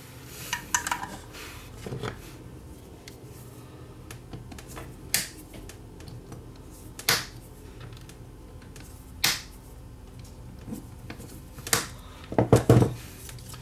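Side cutters snipping the excess leads of freshly soldered replacement capacitors on a power-supply circuit board: four sharp snaps about two seconds apart. There is lighter handling clatter near the start and a burst of knocks near the end.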